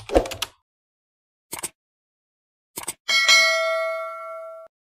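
Intro animation sound effects: a brief swish at the start, two short clicks, then a bell ding from the subscribe-button animation's notification bell. The ding rings for about a second and a half, fades, and cuts off suddenly.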